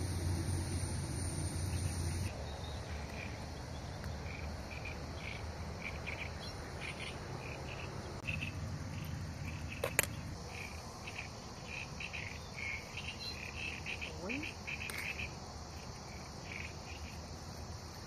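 Insects chirping in short, irregular bursts in a meadow at dusk, after a steady high hiss that stops about two seconds in. A single sharp click sounds about ten seconds in.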